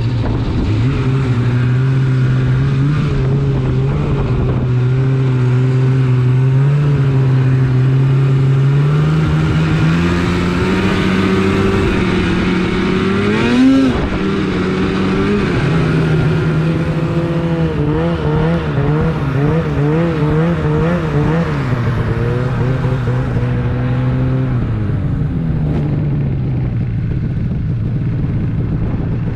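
Polaris RMK snowmobile engine running under way. Its pitch holds steady, climbs to a brief peak about halfway through, wavers up and down a few seconds later, then drops back near the end.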